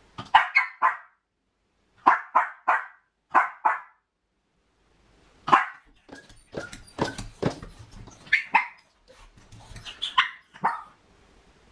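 A miniature pinscher barking at a closed door in quick bursts of two or three barks. About halfway through it jumps up and paws at the door, its claws clicking and scratching among more barks. This is a dog with separation anxiety, left home alone.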